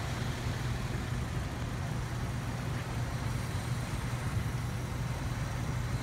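Car engine idling with a steady low hum; the engine is misfiring from a non-functioning fuel injector.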